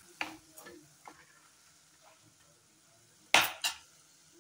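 A steel spoon scraping and clinking in a kadai of hot oil as fried pakoras are lifted out, with faint sizzling. A little after three seconds in come two sharp metal clinks, close together and the loudest sounds here.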